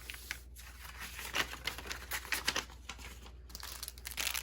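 Crinkling and rustling of packaging handled by hand, in irregular short bursts.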